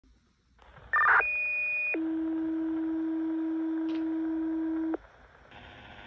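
Fire dispatch radio sending alert tones: a brief data-burst chirp about a second in, then a two-tone page, a high steady tone for just under a second followed by a lower steady tone for about three seconds that cuts off suddenly. Such tones page out the fire company ahead of a spoken dispatch.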